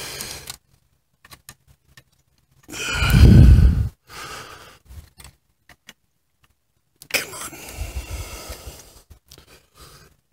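Handling noise while working clutch plates out of a motorcycle clutch basket by hand: a loud rushing burst about three seconds in, then a longer rustling stretch with small clicks near the end.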